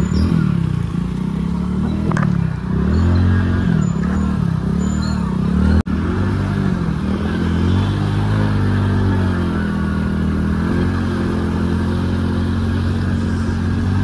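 Motorcycle engine running as the bike rides through floodwater. Its pitch rises and falls again and again over the first six seconds, then holds steadier, with a brief cut in the sound about six seconds in.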